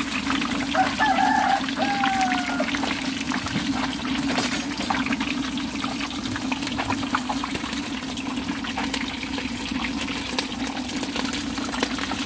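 Running water with a steady low hum beneath it and many small clicks and knocks. About a second in comes a brief pitched call that slides down.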